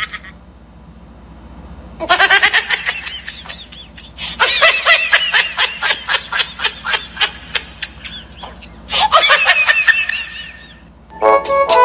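High-pitched giggling laughter in three bouts, each a quick run of short rising-and-falling notes. Brass music begins just before the end.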